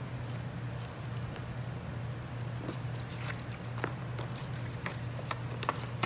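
Plastic bags of wool crinkling and ticking as they are handled, scattered through the second half, over a steady low hum.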